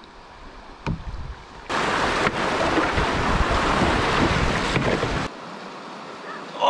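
Rushing whitewater of a shallow river rapid around a canoe running through it: a loud, steady rush that starts about two seconds in and cuts off suddenly after about five seconds, with quiet calm-water ambience on either side.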